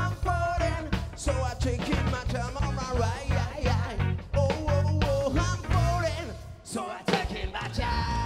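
Live rock band playing: drums beating a steady rhythm under electric guitar, bass and a singing voice. Just before the end the music drops out for a moment, then a single note is held.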